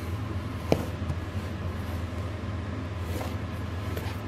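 Cardboard retail box handled and turned around on a tabletop: a sharp tap about a second in, then a couple of light scuffs, over a steady low hum.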